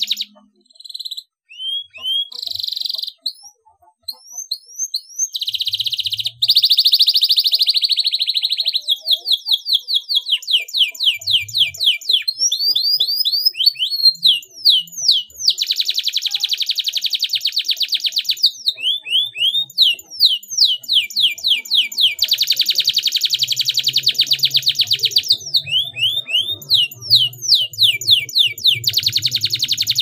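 Domestic canary singing a long, fast song of repeated high sweeping notes and dense rolling trills, broken by a few short pauses in the first seconds.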